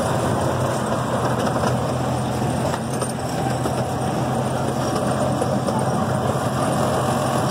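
Chance C.P. Huntington miniature train running along its track: a steady engine drone with the running noise of the train.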